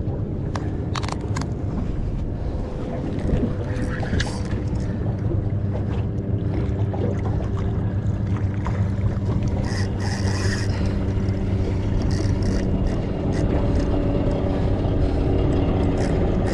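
A boat engine running steadily at low revs, with scattered knocks and scrapes over it.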